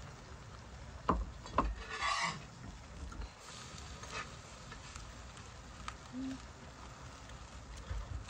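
Quiet eating sounds of table utensils and chewing: two sharp clicks a little after a second in, then a short scraping rustle, with a few fainter ticks later.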